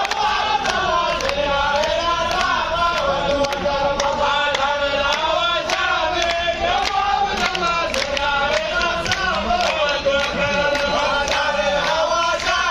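A group of men chanting a folk song in unison, with frame drums beating a steady rhythm under the voices.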